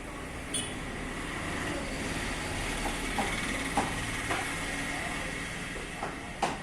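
Steady mechanical running noise with a faint high whine and a few light clicks, then a sharp knock near the end.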